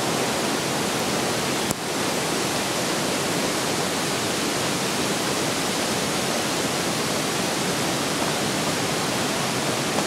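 Mountain river rushing through a gorge: a steady, loud noise of water. A single short click comes just under two seconds in.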